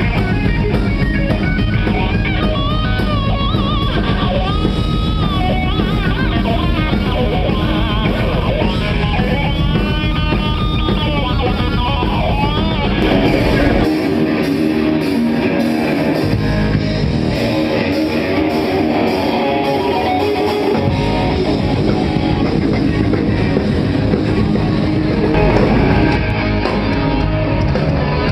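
Rock band playing live, with distorted electric guitar, bass and drums and a wavering lead melody over them in the first half. The bass and kick drum drop out twice about halfway through, then the full band comes back in.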